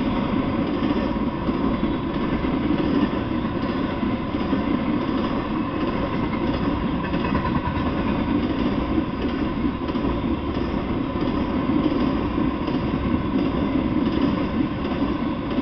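An intermodal freight train passing close by: flatcars loaded with highway trailers and containers rolling along the rails, a loud, steady noise of wheels and cars that never lets up.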